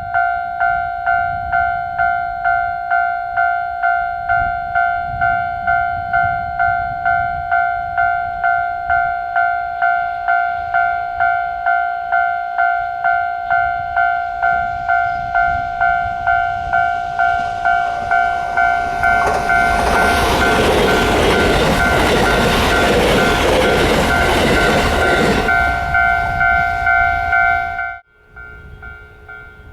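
Japanese level-crossing warning bell ringing, a steady electronic tone pulsing about twice a second. Partway through, a train passes over the crossing, and its rushing noise grows to drown the bell for several seconds. The sound cuts off suddenly near the end.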